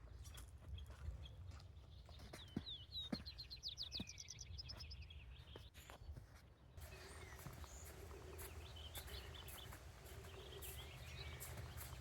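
Songbird singing a rapid trill of quick repeated high notes about three seconds in, over scattered footstep-like clicks on a trail. After about seven seconds the background changes, and birds chirp now and then over a faint low hum.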